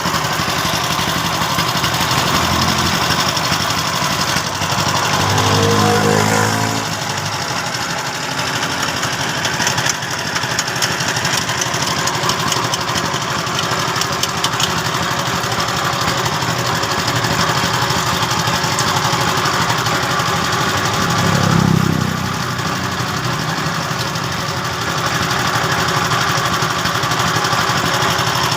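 Machinery running steadily with a continuous mechanical noise, and a brief pitched sound about six seconds in and again about twenty-two seconds in.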